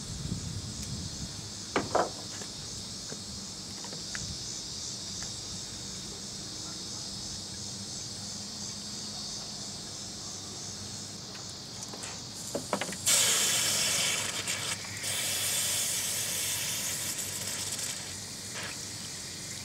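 Water from a hose rushing into a car's cooling system through the filler, starting about 13 seconds in as an even hiss, the loudest sound here, to top up the flush solution, which foams. A steady high buzz runs underneath, with a single click near the start.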